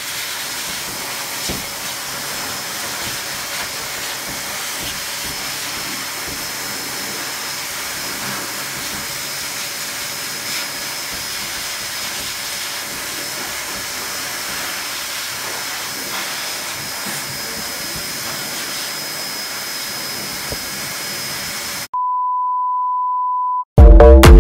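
High-velocity pet dryer blowing air through its hose onto a dog's coat: a steady hiss with a thin high whine. About 22 seconds in it cuts off to a steady beep of about two seconds, then loud electronic music starts.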